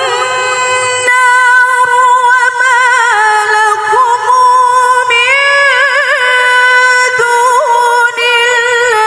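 A woman reciting the Quran in the melodic tilawah style, holding one long ornamented vowel through a microphone. Her pitch steps down and then back up, with quick trills in the middle.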